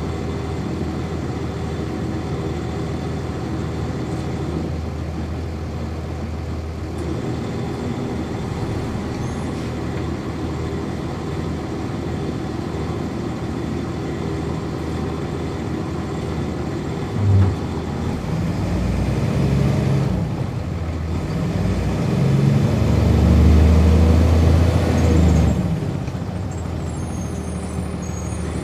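1999 NovaBus RTS transit bus heard from on board, its Cummins ISC diesel engine running steadily. About 17 seconds in there is a short thump, then the engine's pitch rises and drops twice as the ZF Ecomat automatic transmission works up through its gears and the bus gets under way.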